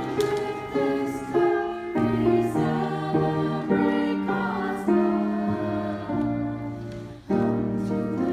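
Small choir of women singing with piano accompaniment, held notes moving from chord to chord. A short break about seven seconds in, then the next phrase starts.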